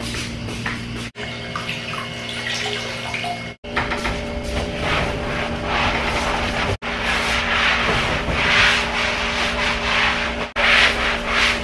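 A cloth rubbing over a leather sofa in repeated wiping strokes, over a steady low hum. The sound cuts out abruptly to silence several times.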